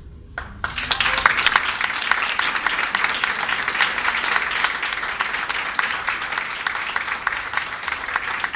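Audience applauding: the clapping breaks out about half a second in as the last note of the clarinet and piano dies away, and holds steady.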